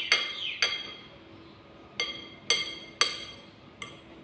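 Metal spoon clinking against a ceramic bowl while scooping dumpling filling: six sharp, ringing clinks, two close together at the start and four more spaced about half a second apart from about two seconds in.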